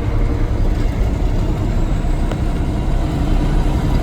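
Steady engine and road rumble of a vehicle driving at speed, heard from inside the cab.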